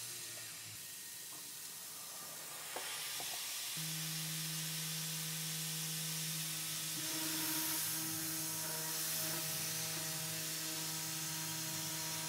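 Tormach 440 CNC mill with its coolant nozzle hissing steadily. After a click about a third of the way in, the spindle starts up at 10,000 RPM and runs with a steady hum. About seven seconds in, further tones join as the 1/8-inch carbide two-flute end mill starts slotting the aluminium.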